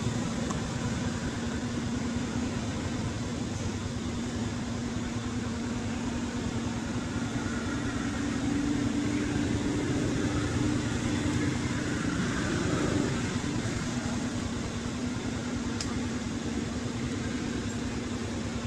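A steady mechanical hum over a constant hiss, like a running motor, a little louder about eight to twelve seconds in.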